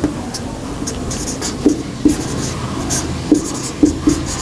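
Marker pen writing on a whiteboard: a run of short scratchy strokes with small taps, over steady room noise.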